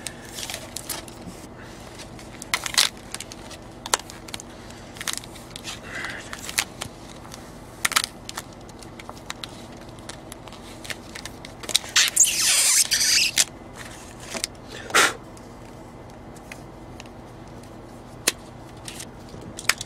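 Wrapsol clear protective film being peeled and unwrapped from a mobile phone by hand: irregular crinkles and crackles of plastic, with a longer rustling stretch about twelve seconds in. The film's adhesive is extremely strong.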